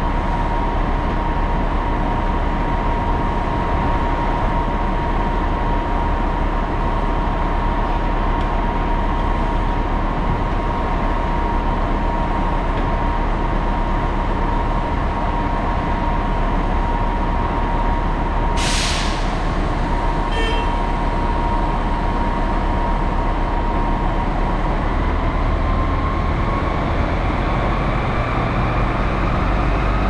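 Putzmeister truck-mounted concrete pump running at a steady speed with a steady whine; in the last few seconds the whine rises in pitch as the machine speeds up. One short hiss a little past halfway.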